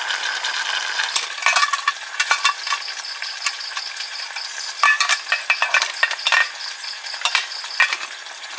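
A metal utensil stirring in a pan, with irregular clinks and scrapes in short clusters over a steady sizzling hiss of food frying.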